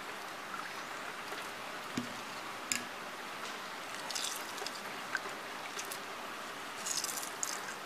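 Steel spoon stirring tamarind water in a steel pot: faint swishing with a few light clicks, over a steady background hiss.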